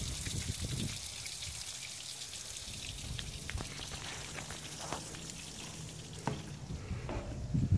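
Water from a garden hose spraying around a boat's stern drive and spattering onto wet pavement, a steady hiss, with a few faint clicks.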